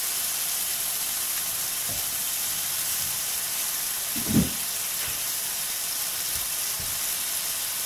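Two steaks searing in olive oil and melting butter in a hot HexClad hybrid fry pan, giving a steady sizzle. A brief low thump about four seconds in.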